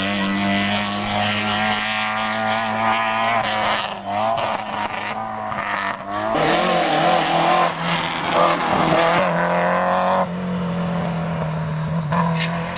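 Rally car engines accelerating hard and changing gear as the cars pass one after another, the pitch climbing and dropping with each shift. The sound changes abruptly several times as one car gives way to the next.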